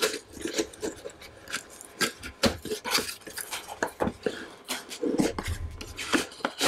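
Cardboard boxes being handled and opened by hand: an irregular run of short scrapes, taps and rustles of cardboard sliding and flaps being pulled open.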